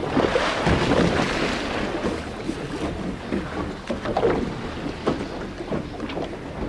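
Wind and sea noise on an open boat deck, louder for the first two seconds or so, with a low steady hum underneath.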